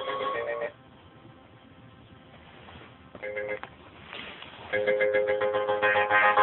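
Phone ringtone melodies playing: one tune cuts off less than a second in, a short snippet sounds about three seconds in, and a new tune starts a little before five seconds in.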